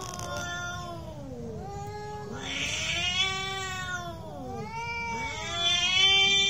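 Two cats yowling at each other in a fight standoff: long, drawn-out wavering howls that rise and fall in pitch and overlap one another, with a brief hissy rasp about two and a half seconds in. The loudest howl comes near the end.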